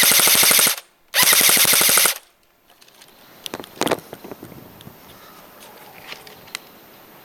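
Airsoft G.I. Compact SD M4 electric airsoft gun firing on full auto from an 8.4-volt battery: two quick bursts of rapid shots, the first under a second and the second about a second long, then a few faint clicks.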